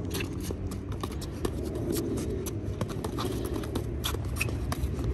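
Boxing sparring: many short, irregular taps and scuffs of boxing gloves and sneaker footwork on asphalt, over a low steady rumble.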